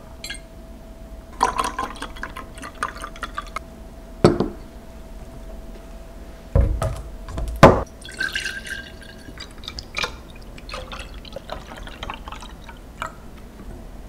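Liquid seasoning being poured from a bottle into a glass jar, trickling and splashing. Glass bottles clink and knock as they are handled, with the two loudest knocks a little past the middle.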